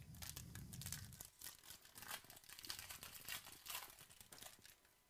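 Foil trading-card pack wrapper being torn open and crinkled by hand: a faint run of quick crackles and rustles that thins out near the end.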